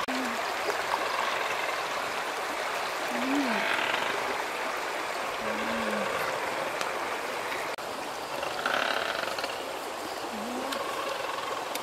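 Steady rush of flowing river water, with a few short, low calls that rise and fall in pitch, spread through the stretch.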